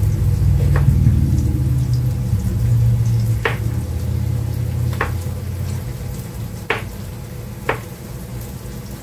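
Kitchen knife chopping a small eggplant on a plastic cutting board: five sharp taps of the blade on the board, spaced unevenly. Under them, onions sizzle faintly in an electric skillet, and a low rumble fades out about six seconds in.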